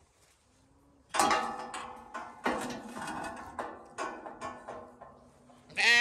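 Knocks and clattering, mixed with Zwartbles lambs bleating; one loud bleat near the end.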